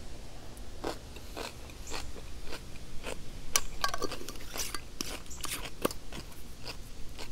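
A person chewing crisp food close to the microphone, with irregular sharp crunches at every bite.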